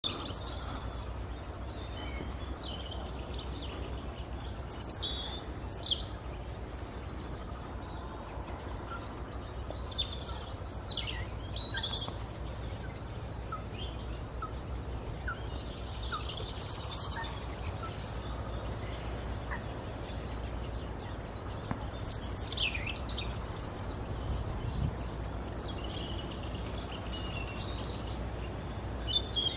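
Small songbirds chirping and calling, short high notes and quick sweeps coming every second or two, loudest about halfway through, over a steady low rumble.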